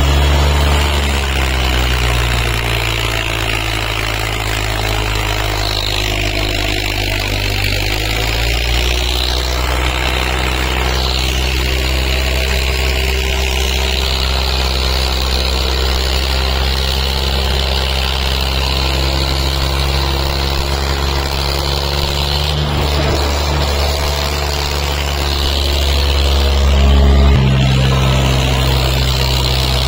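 Tractor diesel engines, one of them a Kubota, running hard under heavy load as two tractors pull against each other in a tug-of-war, making a steady low drone. The engine note drops about nine seconds in, then rises and grows louder near the end.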